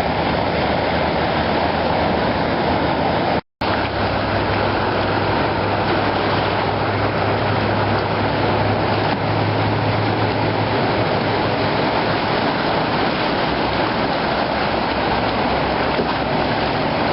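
Floodwater rushing in a steady, unbroken noise, with a brief break about three and a half seconds in.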